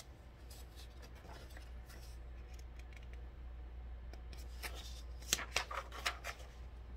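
Paper rustling and a run of crisp clicks as a hardcover picture book is handled and its page turned, over a low steady hum.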